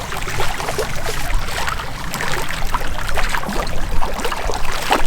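Water splashing and sloshing as a small brook trout is reeled in and landed at the lake's edge, with many small irregular splashes.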